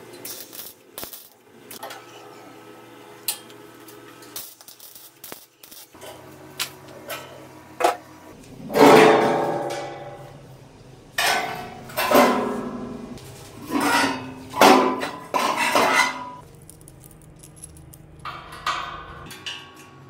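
Steel square-tube grill frame and sheet-metal firebox being handled, clanking against each other and the tiled floor, several strikes ringing briefly. Lighter clicks and taps of metal parts come before, with the loudest clanks in the second half.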